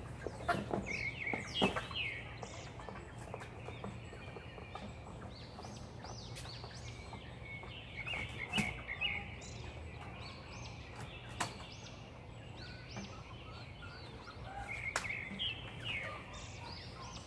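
Hens in a backyard coop calling in short high bursts, in three bouts: about a second in, around the middle, and near the end. A few sharp knocks are heard, and a low steady hum runs underneath.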